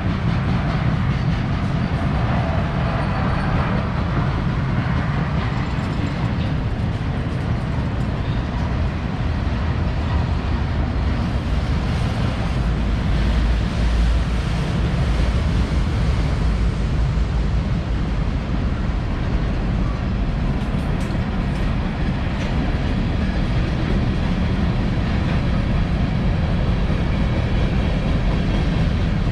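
Freight train rolling past: a steady rumble of cars and steel wheels on the rails.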